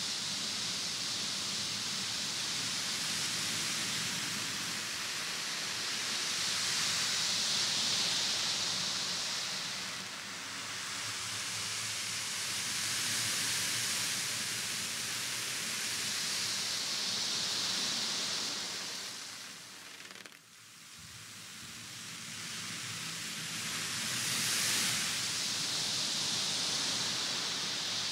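Ocean drum: beads rolling across the drumhead in slow swells of surf-like hiss, rising and falling every four to six seconds, with a brief fade about two-thirds of the way through.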